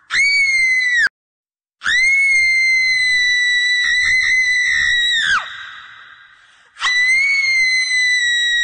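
Haunting, shrill screams held at a steady high pitch: a short one cut off abruptly, then a longer one of about three and a half seconds that drops in pitch at the end and trails off in an echo, and a third beginning near the end.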